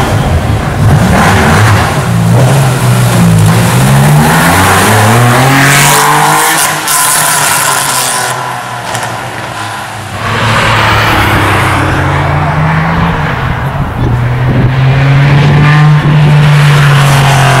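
Porsche 993 Carrera RS's air-cooled 3.8-litre flat-six, loud, revving and accelerating hard, its exhaust note climbing in pitch with each pull. It eases off in the middle, then holds a high, steady note near the end.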